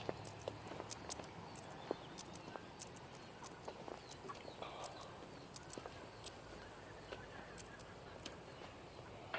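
Faint outdoor ambience: many scattered sharp clicks and ticks over a steady high hiss, with a few faint bird calls.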